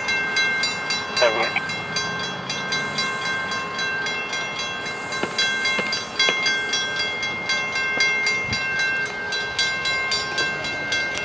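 Railroad grade-crossing warning bell ringing on and on in quick, evenly spaced strikes.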